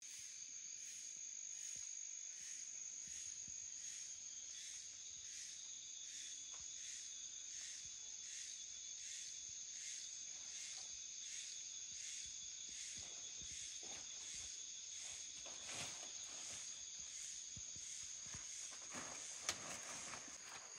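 Insect chorus in the forest: a steady high trill pulsing about twice a second. In the second half, footsteps and rustling through undergrowth, with a few sharper snaps near the end.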